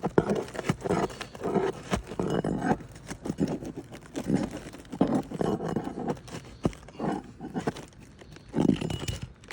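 Prying high nails out of old, brittle asphalt shingles: sharp clicks and knocks from the tool, among repeated rough rasping bursts about half a second to a second long.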